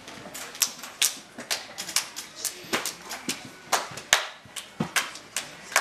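Two people doing a hand-clapping game, their palms clapping their own hands and each other's in a quick, even run of sharp claps, about three a second.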